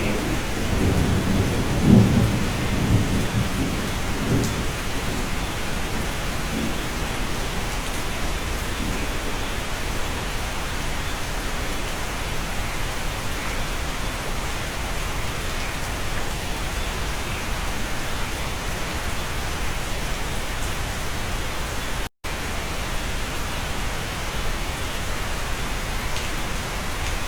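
Steady rain on a cabin, with a low rumble of thunder in the first few seconds that peaks about two seconds in and then fades into the rain. Near the end the sound cuts out completely for an instant.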